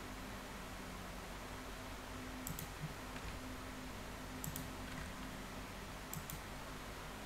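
Computer mouse and keyboard clicks: three pairs of sharp clicks, about two seconds apart, over a faint, steady low hum.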